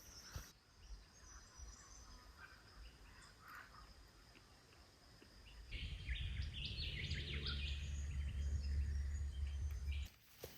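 Birds calling outdoors: faint scattered chirps at first, then a louder run of bird calls over a low rumble for the last few seconds, which cuts off suddenly near the end.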